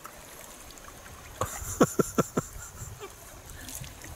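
A quick run of four or five hollow knocks, about five a second, from a sea kayak and its paddle, with water splashing and dripping off the blade as it is lifted.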